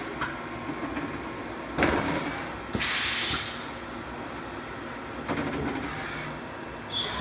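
Machine-shop background: a steady low hum with a few sharp knocks, and a short loud hiss about three seconds in.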